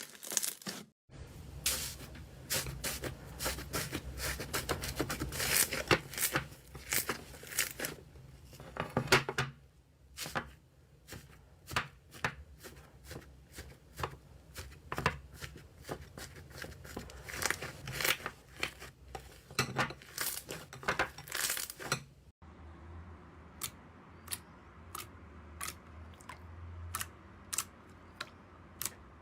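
Slime being pressed and stretched by hand close to the microphone, crackling with dense sharp pops and clicks. After a cut about three-quarters of the way through, the clicks become sparser and more evenly spaced over a faint low hum.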